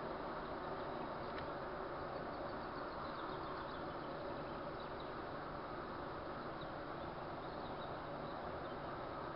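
Steady road, tyre and engine noise of a car driving slowly, heard from inside the car, with a few faint high chirps in the middle.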